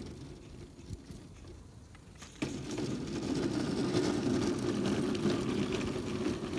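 Scratch-built 3½-inch gauge live steam Feldbahn locomotive running past close by with its train, a steady mechanical rattle and hiss. It gets suddenly louder about two and a half seconds in, as the train comes up to the microphone.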